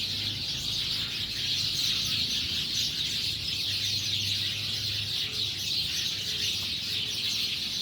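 A large flock of small birds chirping all at once, a dense, unbroken chatter, a big racket: birds gathering to roost at sunset.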